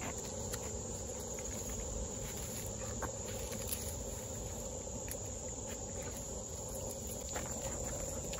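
Dogs and a walker moving over a wood-chip and leaf-litter trail and through undergrowth: scattered soft crunching and rustling steps. A steady high insect chorus goes on behind them.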